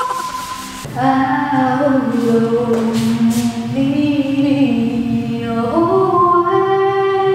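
Music: a woman's voice singing long held notes that step from one pitch to the next, starting a little softer for the first second.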